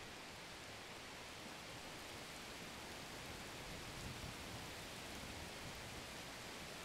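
Faint steady hiss of background noise, even throughout with no distinct events.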